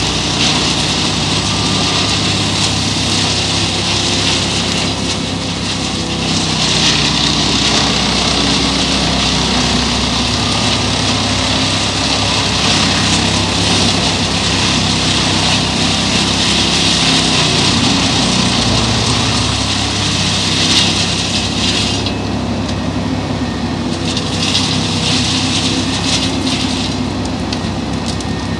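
Scania R620's V8 engine running under load with a Bruks truck-mounted wood chipper shredding brush and branches fed in by the crane. A steady engine note sits under a rushing chipping noise that swells and eases as loads go through, loudest from about six seconds in to past twenty seconds and again near the end.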